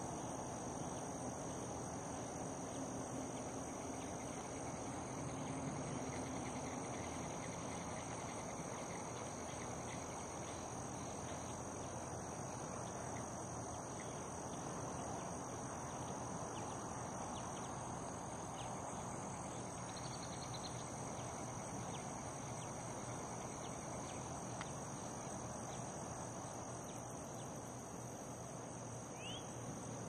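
Steady high-pitched chorus of insects buzzing over a broad background hiss of outdoor ambience, with a brief faint chirp near the end.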